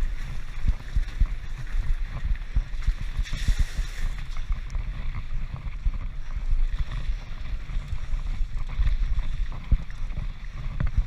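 Wind buffeting a GoPro's microphone, a heavy low rumble, with frequent knocks and rattles from a mountain bike riding over rough ground.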